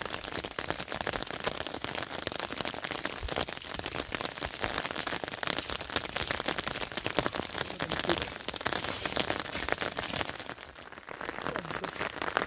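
Rain pattering, a dense, steady crackle of drops, easing briefly a little before the end.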